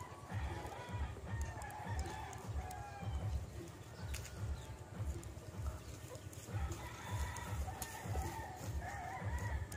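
Roosters crowing, with one drawn-out call starting just after the beginning and another in the second half, over a low buffeting rumble of wind on the microphone.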